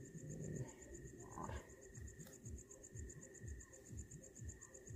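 Crickets chirping in a fast, even pulsing trill, with soft low bumps of handling close by.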